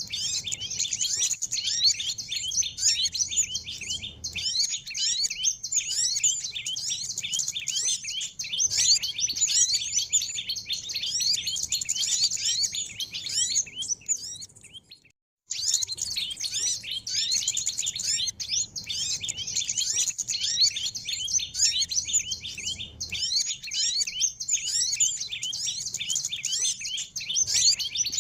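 Dense, unbroken chirping and twittering of many small birds together, a bird-lure (pikat) recording made to attract small birds. It cuts out completely for about a second near the middle, then resumes just as before.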